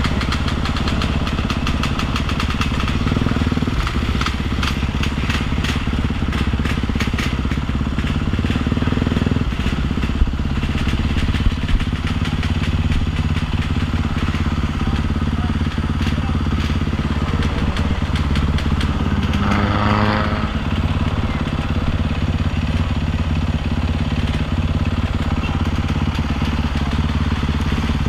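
Motorcycle engine running steadily throughout, with a short pitched sound rising and falling about two-thirds of the way through.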